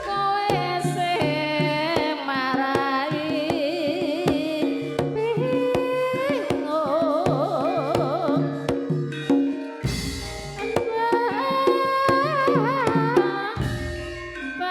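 Campursari band playing: a wavering melody with vibrato over a steady rhythm of hand-drum strokes, with deep low booms twice in the second half.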